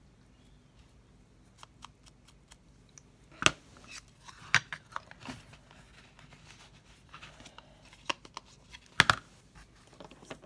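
Craft supplies being handled on a table: scattered light clicks and paper rustle, with a few sharper clacks of plastic items being picked up and set down, the loudest about a third of the way in and again near the end.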